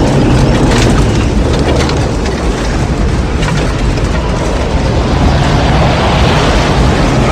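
Excavator demolishing a houseboat: heavy machinery runs steadily under loud crunching and breaking of debris, with sharp cracks in the first two seconds and again about three and a half seconds in.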